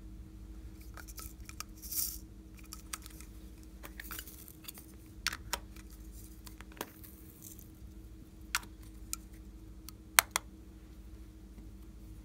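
Small plastic containers handled and opened by hand: scattered sharp plastic clicks and taps, the loudest about ten seconds in, with a brief rustle about two seconds in.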